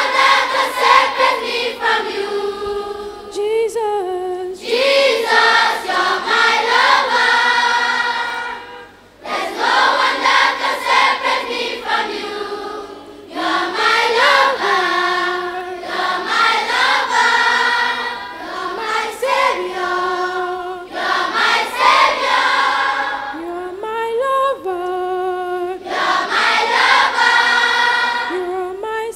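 Children's choir singing a Christian song, phrase after phrase, with brief pauses between phrases.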